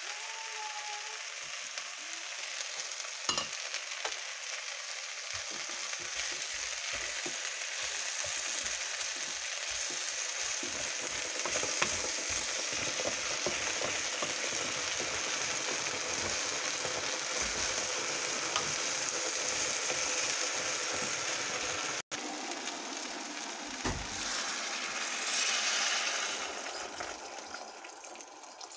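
Pork sizzling as it fries in a pan while being stirred, a steady hiss with scattered clicks of a utensil against the pan.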